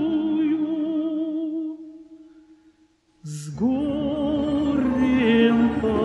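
Song with a held note with vibrato that fades away about two seconds in. After a short hiss, a new sustained note slides up into pitch and then steps down, in a slow, operatic-style vocal song without clear words.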